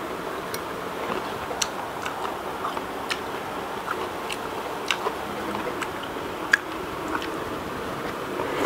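Close-up eating sounds of a person chewing shrimp and noodles: irregular sharp clicks and mouth smacks, roughly one a second, the loudest about two-thirds through, over a steady background hiss.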